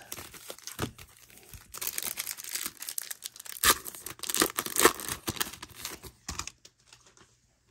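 Wrapper of a 1991 Score baseball card pack being torn open and crinkled by hand: a run of irregular crackling rips that dies away near the end.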